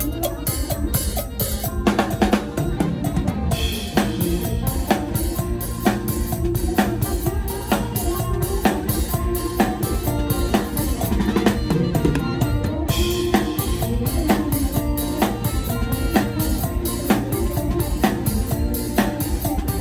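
Mor lam band music with a drum kit playing a driving, steady beat of kick, snare and cymbals, close to the drums, over bass and other band instruments.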